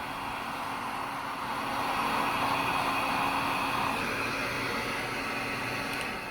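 Heat gun blowing a steady rush of hot air with a faint hum underneath, heating a solder-seal heat-shrink connector on joined wires so that the solder melts and the sleeve shrinks. It is switched off near the end and the airflow dies away.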